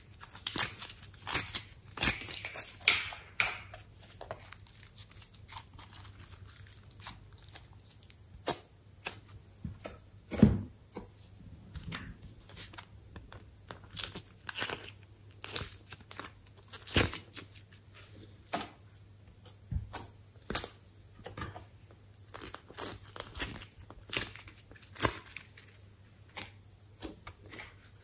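Sticky clicks and crackles of glossy slime and soft clay being handled: slime pulled out of plastic cups and clay peeled up by hand, with occasional plastic taps. The clicks come irregularly throughout, a few of them louder.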